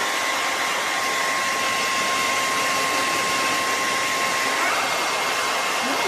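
Handheld hair dryer running steadily: a rush of blown air with a thin, steady whine from its motor.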